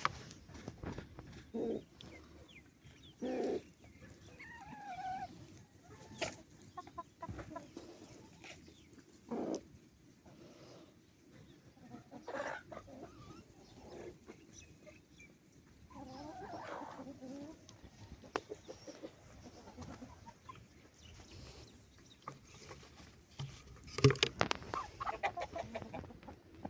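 Chickens clucking, with short scattered calls, and a louder flurry of sharp sounds and calls near the end.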